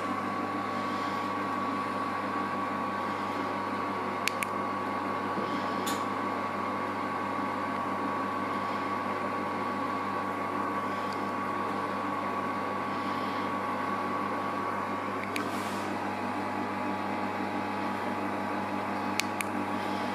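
Steady hum of a kitchen appliance's motor, with a thin high whine over it that shifts slightly about three quarters of the way through, and four faint clicks scattered across it.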